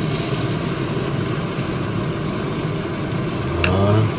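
Steady mechanical drone of a running fan, with a few faint metallic clicks of tongs against a stainless steel ring mould.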